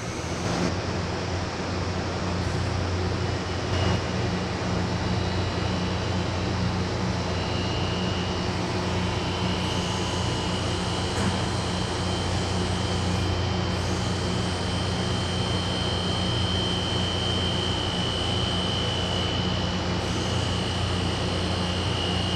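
Window-type air conditioner running, its compressor and fan giving a steady low hum with a rushing air noise, while its low R410A refrigerant charge is being topped up. A thin, steady high-pitched whine joins about a third of the way in.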